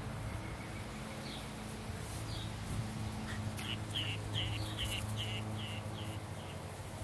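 A bird calling: a series of short, high chirps, about three a second, starting about three and a half seconds in, over a steady low hum.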